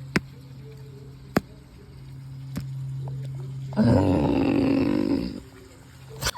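A person imitating an animal, giving one loud roar-like call of about a second and a half, starting about four seconds in. Before it come a few sharp clicks over a low steady hum.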